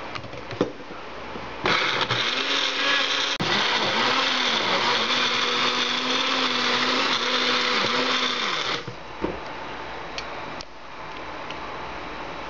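Magic Bullet blender motor chopping tomatoes and herbs into a chunky chutney, running for about seven seconds with its pitch sagging and recovering several times as the cup is pulsed on the base. A few light clicks follow as the cup is handled.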